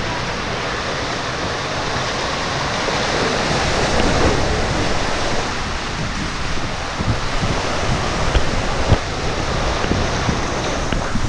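Water rushing and a six-person round raft sliding through an enclosed plastic tube water slide, a steady rushing roar with a few short knocks in the second half.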